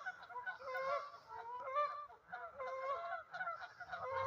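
Canada geese honking in a rapid series of short calls, about three a second, from a goose that is worked up and excited.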